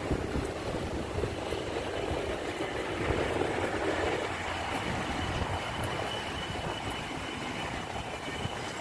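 A train running by: a steady rumble and rail noise, swelling for a second or two a few seconds in, with a thin high whine over the last few seconds.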